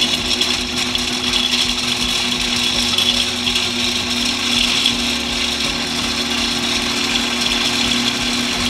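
Food processor motor running steadily on its low setting, its S blade spinning through pine nuts, with a constant hum and whirr.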